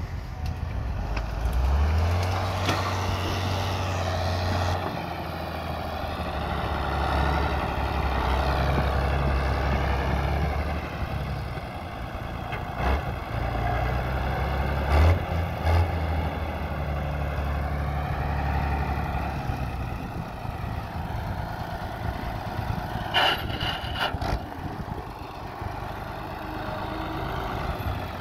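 Renault tractor's diesel engine running hard as the tractor manoeuvres, its pitch rising and falling with the throttle. A few sharp knocks come through about halfway and again about two thirds of the way in.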